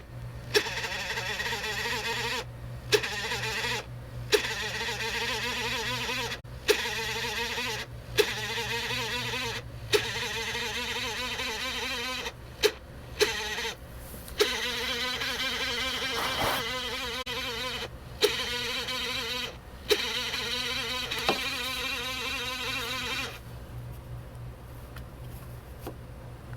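Lenovo Yoga C740 laptop whirring with a high, wavering whine. The whine cuts out briefly with a click every second or two and turns fainter near the end.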